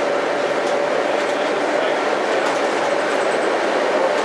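Inside a moving city bus: steady engine and road noise with a faint steady whine and occasional light rattles.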